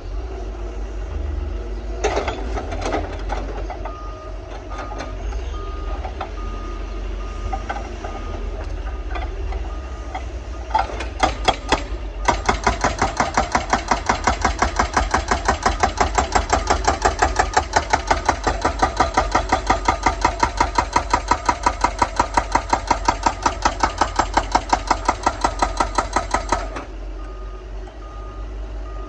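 Excavator at work over its running engine: its travel alarm beeps at an even pace. Then, from about twelve seconds in, a rapid, even pounding of about three strokes a second goes on for some fifteen seconds and stops suddenly.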